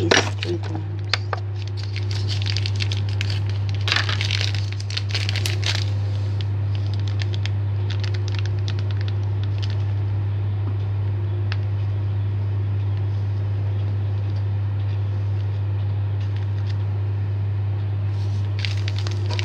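Crinkling and rustling of an ingredient's packaging as it is handled and emptied into a bread maker pan, in bursts with scattered clicks, busiest in the first few seconds. A steady low hum runs underneath.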